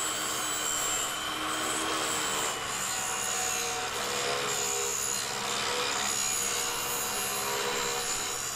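Table saw running steadily while ripping a plywood panel, the blade cutting through the sheet as it is fed along the fence.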